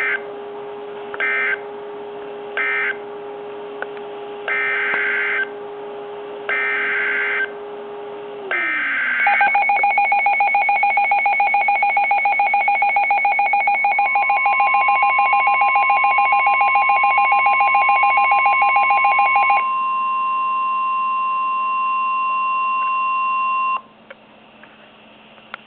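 NOAA Weather Radio emergency alert signalling between two flood warnings. There are three short SAME data bursts (the end-of-message code of the first warning), then three longer SAME header bursts for the next warning. These are followed by a rapidly pulsing two-pitch alert beep, joined about 14 s in by the steady 1050 Hz weather-radio warning alarm tone, which cuts off near the end.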